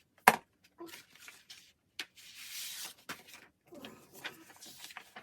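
Paper album contents and cards being handled: a sharp tap about a quarter second in, then rustling and light clicks, with a sliding scrape of about a second around the middle.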